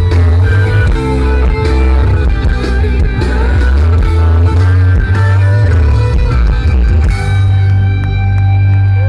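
A live rock band playing at full volume: electric guitar over bass and drums, with a chord held through the last couple of seconds.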